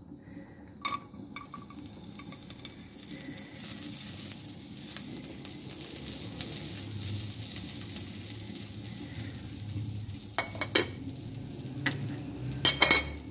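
Finely chopped garlic sizzling in melted butter in a nonstick frying pan, stirred with a spatula. A few sharp knocks come near the end.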